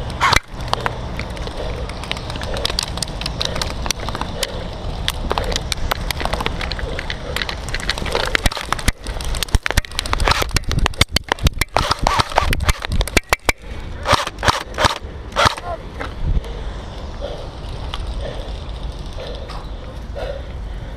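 Airsoft gunfire: many sharp clicks and snaps in irregular runs, thickest in the middle, over a steady low rumble.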